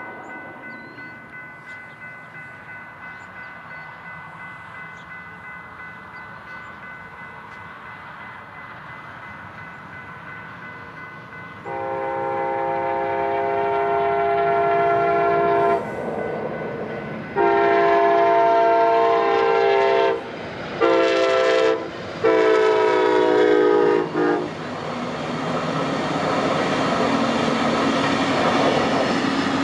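Railroad crossing bell ringing steadily, then about twelve seconds in a train horn sounds the grade-crossing signal: long, long, short, long. After the last blast the train passes, with rising rail noise and wheel clatter.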